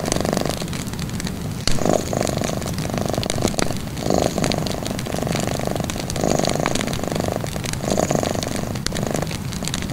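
A cat purring in repeated cycles, each purr lasting about a second, over a wood fire crackling with scattered sharp pops.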